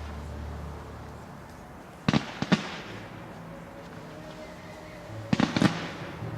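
Aerial firework shells bursting in two clusters of sharp bangs, about two seconds in and again about five and a half seconds in, over background music with long held low notes.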